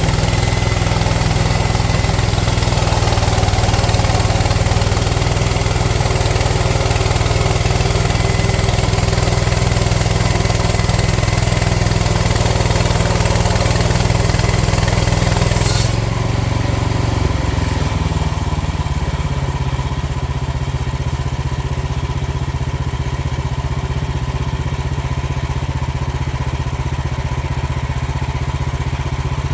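Portable bandsaw sawmill's gasoline engine running hard with a high hiss over it. About halfway through the hiss cuts off suddenly, and over the next few seconds the engine settles to a lower, quieter steady run.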